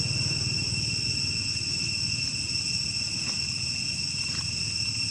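Steady, unbroken high-pitched drone of insects such as crickets or cicadas, over a low steady rumble.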